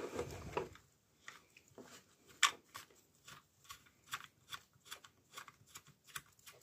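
Small plastic clicks and taps, irregular, roughly two or three a second: an action-camera case being fitted to a plastic chest-harness mount as its thumbscrew is worked in.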